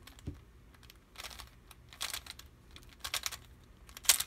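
Plastic layers of an X-Cube twisty puzzle being turned by hand, clicking in short flurries about once a second. The loudest flurry comes near the end.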